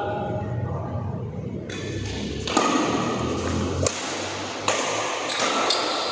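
Badminton rackets striking a shuttlecock: three sharp hits in the second half, each ringing out in a large hall's echo.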